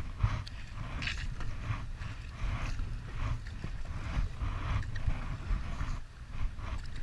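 Kayak paddle strokes splashing into the water in a steady rhythm, a splash roughly every half second, over a steady low rumble.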